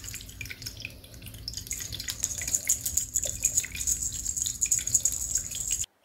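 A cat playing with a feather wand toy on a hardwood floor: a run of irregular small clicks and rustles as it bats and bites at the feathers. They grow busier from about a second and a half in, over a faint steady hum, and cut off just before the end.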